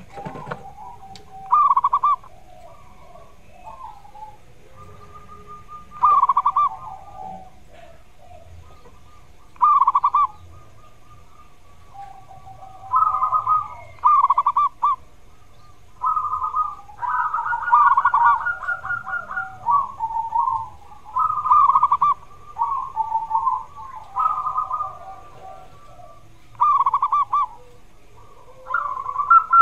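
Zebra dove (perkutut) cooing: short phrases of rapid staccato coo notes. The phrases come every four seconds or so at first, then closer together and longer in the second half.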